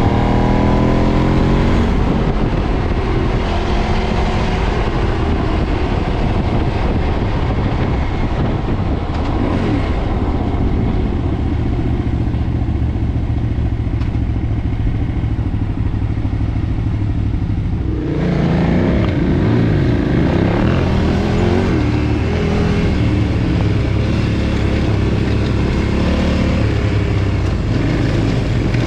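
KTM 990's V-twin engine through its stock exhaust, heard from the moving bike. The revs rise and fall at the start, hold a steadier drone through the middle, then from about two-thirds through the pitch wanders up and down again with short throttle changes.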